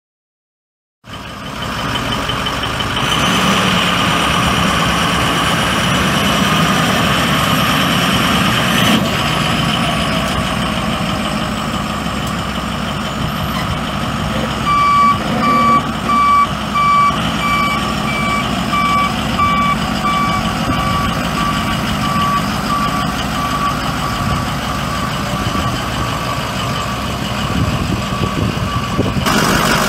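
International VT365 6.0L V8 turbo diesel of a Ford F650 service truck running steadily, starting about a second in. From about halfway through a backup alarm beeps at an even pace, a reversing warning.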